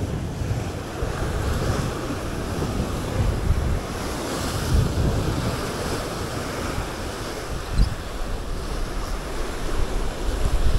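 Wind gusting against the microphone over the steady wash of sea waves, with one brief low thump about eight seconds in.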